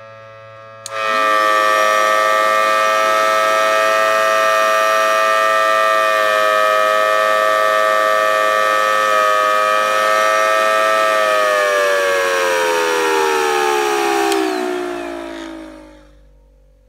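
Homemade scale model of a Federal Signal Thunderbolt 1000T outdoor warning siren, with a 3D-printed horn and an air mattress blower, sounding a loud, steady siren tone that cuts in suddenly about a second in. From about 11 seconds in the pitch falls steadily as the chopper slows, and the sound fades out near the end.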